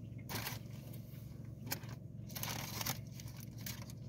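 Hands pulling apart a meatball sub: short rustling, tearing handling noises, three times, the longest about two and a half seconds in.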